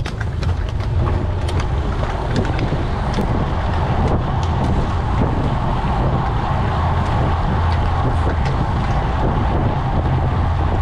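Wind buffeting the action camera's microphone, with tyre and road noise from a bunch of road bikes picking up speed from a standing start. Scattered sharp clicks from the bikes come mostly in the first few seconds.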